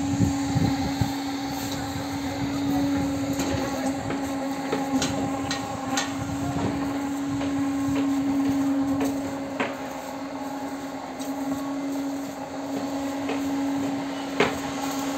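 Construction-site noise: a steady machine hum with irregular sharp knocks, the loudest one near the end.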